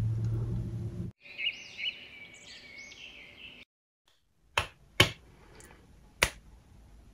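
A warbling, chirpy sound effect for about two seconds, then after a short silence three sharp finger snaps, the last about a second after the first two.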